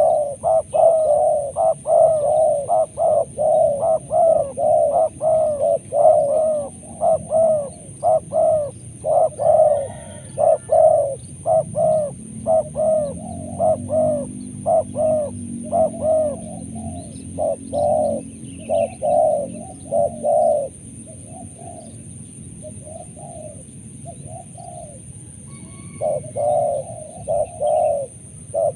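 Spotted doves cooing in a long run of repeated coos, about two a second. The calls thin out in the second half, stop for several seconds, and start again near the end.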